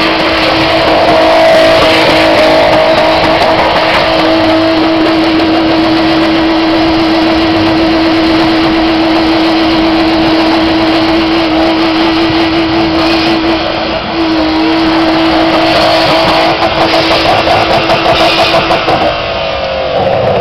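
BMW E36 3 Series engine held at high revs, steady in pitch, while the rear tyres spin and smoke in a burnout, over a broad hiss of spinning rubber. The revs dip briefly about two-thirds of the way in, the sound pulses rapidly for a few seconds near the end, and then the revs drop away.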